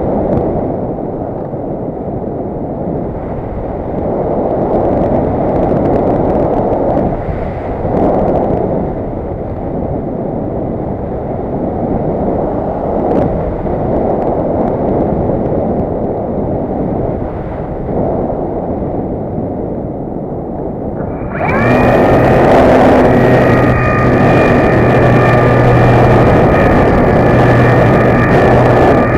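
Wind rushing and buffeting over the onboard camera of a radio-controlled MDM-1 Fox model glider in flight. About 21 seconds in, the nose motor starts and the propeller spins up. It then runs on with a steady whine and buzz, louder than the wind.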